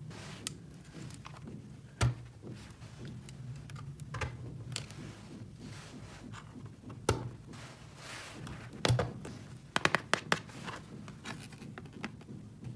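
Small plastic toy pieces being handled: scattered clicks, taps and light scratches, with a quick run of clicks about ten seconds in, over a low steady hum.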